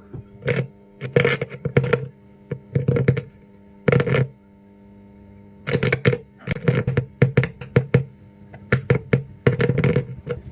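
A faulty home theatre's speaker putting out sound in short, irregular loud bursts that cut in and out, over a steady electrical hum: the sign of the unit's sound fault.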